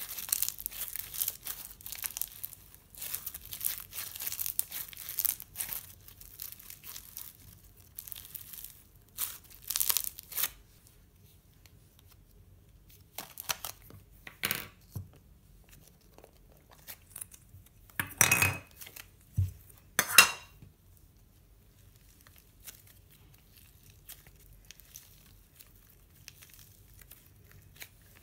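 Slime being squeezed and kneaded by hand, making dense wet crackling and popping, busiest in the first six seconds and then more scattered. Two louder sharp clacks come about two-thirds of the way through, followed by faint, sparse squishing as blue butter slime is stretched.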